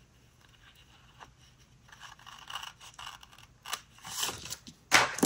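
Paper stickers being handled on a planner page: near quiet at first, then light rustling and scraping with a few short sharp snaps, the loudest about five seconds in.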